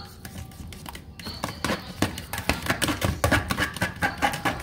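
A metal fork whisking egg-and-cream batter in a plastic container: quick, irregular clicks and taps of the tines against the container, growing louder and faster about a second and a half in.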